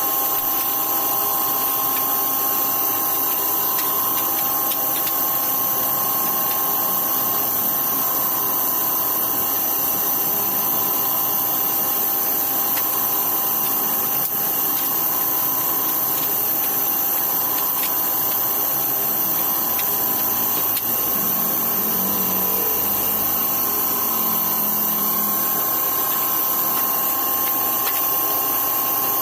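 A power tool's electric motor running steadily, with a constant high whine over a rushing hiss.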